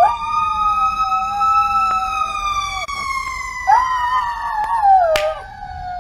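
A siren wailing in one long, slow rise and fall, with a dog howling along to it in two wavering howls, the second ending near the end.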